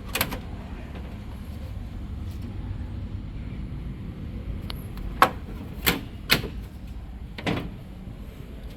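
Panasonic CS-C9DKJ split air conditioner running with a steady low hum, broken by a few sharp clicks, most of them bunched past the middle.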